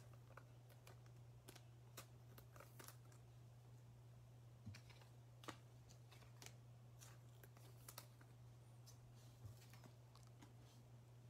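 Near silence broken by faint, scattered clicks and taps of trading cards being handled and set down on a table, over a low steady hum.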